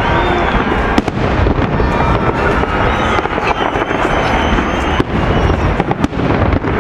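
Fireworks display going off in a continuous barrage of shell bursts and crackling, with sharp bangs about a second in and twice more near the end.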